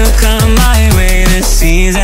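Electronic background music with a steady drum beat, deep bass and a lead melody that bends up and down in pitch.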